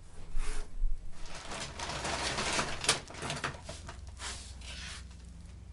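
Handling noises as the power cord of a 1930s Singer sewing machine is hooked up: rustling and scraping, a couple of low knocks in the first second and a sharp click about three seconds in.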